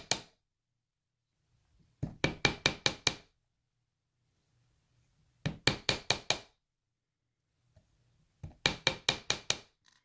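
Small ball-peen hammer lightly tapping a copper wire clasp on a steel bench block: quick ringing metal clinks in bursts of five or six, about every three seconds. The hammering flattens and hardens the wire's curves so they won't easily bend.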